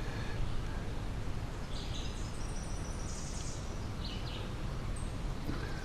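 Songbirds chirping a few times, a quick run of high chirps about two seconds in and single short calls later, over a steady low rumble of outdoor background noise.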